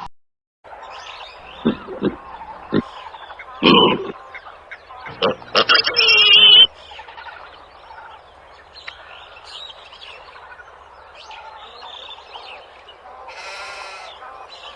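Animal calls: a string of short, loud calls in the first half, the last and longest ending in a high warbling call, then fainter calls over background noise.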